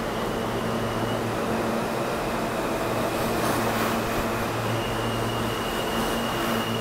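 R160-series New York subway train in the station: a steady rumble and hum with a faint high whine over it.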